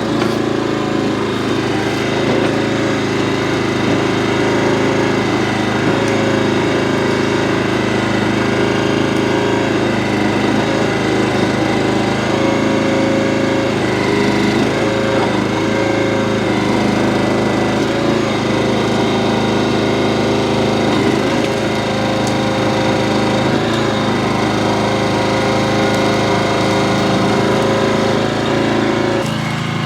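Small gasoline engine of a towable backhoe running steadily at working speed, driving the hydraulics as the bucket digs into hard-packed dry soil. There is a slight break in the sound near the end.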